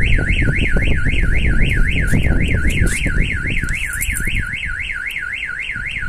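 Starline car alarm siren going off on a Toyota Prius, set off by force applied to the car's body: a loud electronic whoop that sweeps upward about four times a second without a break.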